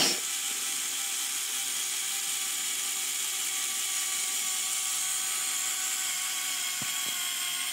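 Electric motor and gear train of a LEGO Technic Mercedes truck whirring steadily as it lowers the tipper bed, with a single click at the start.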